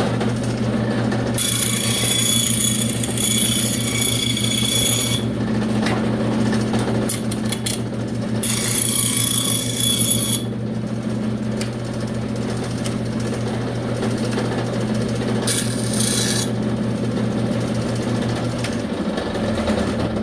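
A 12-inch bandsaw runs with a steady motor hum while its blade cuts thin eighth-inch plywood. There are three main cuts with a hissing rasp, starting about a second in, about eight seconds in and about fifteen seconds in, with a few short nicks between them. Near the end the hum drops away as the saw is switched off.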